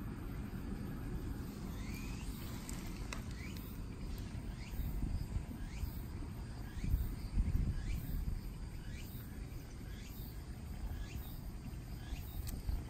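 Outdoor ambience: a steady low rumble, swelling briefly about seven seconds in, with short rising chirps repeating about once a second.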